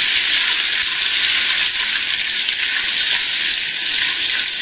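Browned sliced onions sizzling in hot ghee in a wok, stirred with a wooden spatula: a steady frying crackle.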